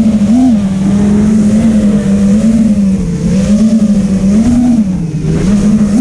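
Brushless motors and propellers of a 5-inch FPV racing quadcopter whining steadily, recorded by the GoPro on board. The pitch wavers slightly up and down with the throttle and rises near the end.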